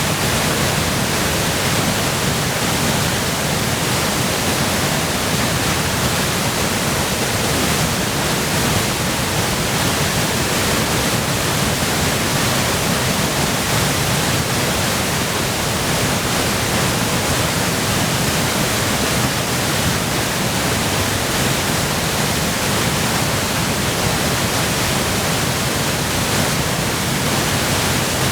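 Waterfall in full spate from spring snowmelt and heavy rain, a loud, steady rush of falling water with no break.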